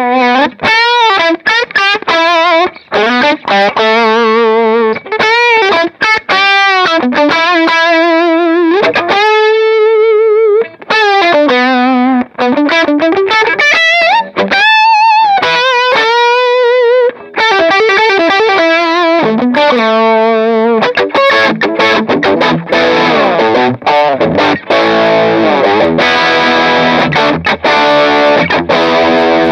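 Electric guitar played through a Fender Blues Junior III tube amp fitted with a Celestion Greenback Heritage heavy magnet speaker: single-note lead lines with wide vibrato and string bends, then from about twenty seconds in, strummed chords ringing out, played as a tone test of the new speaker.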